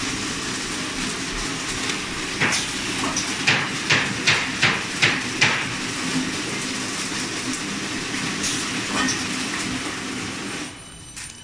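Automatic paper straw wrapping machine running with a steady mechanical noise. From about two and a half seconds in comes a run of about seven sharp clacks, two or three a second. The running noise falls away near the end.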